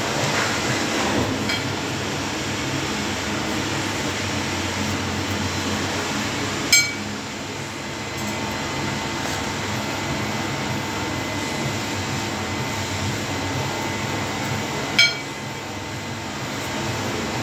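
Steady background hum with two short, sharp ringing clinks, the first about seven seconds in and the second about eight seconds later.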